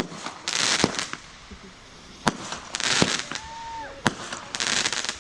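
Consumer fireworks going off: about five sharp bangs spread over a few seconds, with three short hissing, crackling bursts between them and a brief whistle-like tone a little past the middle.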